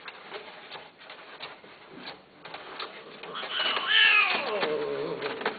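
A cat gives one drawn-out meow about three seconds in. It starts high, falls in pitch and wavers for about two seconds before it stops.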